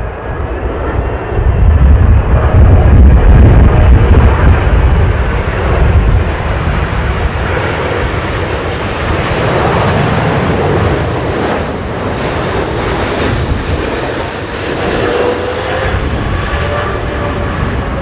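Jet noise from a Boeing 777 airliner's twin turbofan engines on final approach, a loud, steady rush with a deep rumble that is heaviest in the first few seconds. Faint wavering whine tones come through near the end as the jet nears touchdown.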